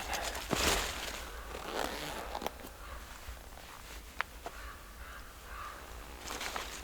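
Close rustling and handling noise with a few sharp clicks and a swish near the end.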